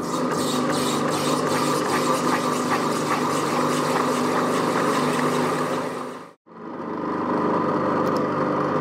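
Pillar drill running with a twin-blade circle cutter (trepanning tool) slicing a circle out of 6 mm acrylic sheet: a steady machine hum with scratchy cutting noise from the blades in the plastic. The sound cuts out abruptly for a moment about six seconds in, then picks up again.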